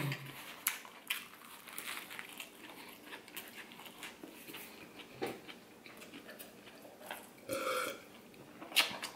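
Close-up chewing of a big mouthful of fried oyster po' boy sandwich: faint crunching and wet mouth clicks throughout. Near the end comes a short throaty sound, then a sip of root beer from a glass.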